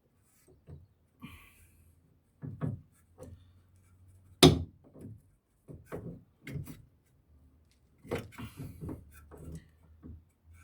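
Scattered knocks and clunks of tools and metal parts being handled during car suspension work, with one loud sharp knock about four and a half seconds in.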